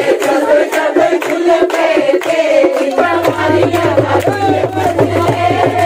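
A group of voices singing a Pahari nati folk song together over a quick, even beat of sharp strikes.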